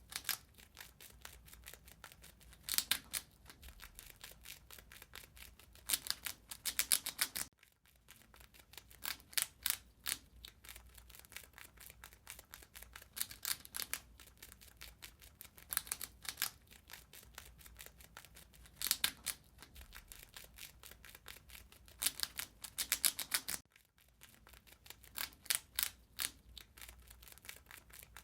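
Rat gnawing and chewing on food: rapid crunching clicks that come in bursts every second or two, with two brief gaps about 7.5 s in and near the end.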